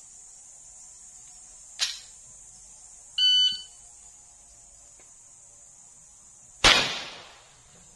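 A sharp crack about two seconds in, then an electronic shot-timer start beep of about half a second, then about three seconds later a single loud Glock 17 9mm pistol shot that echoes briefly.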